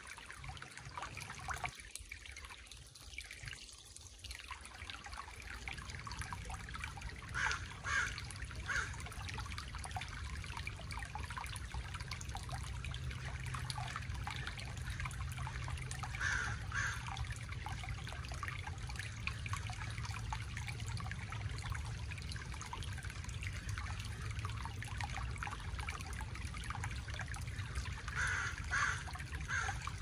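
Shallow creek trickling over stones, with a steady low rumble of wind on the microphone. A bird calls in short runs of two or three notes a few times, about eight seconds in, midway and near the end.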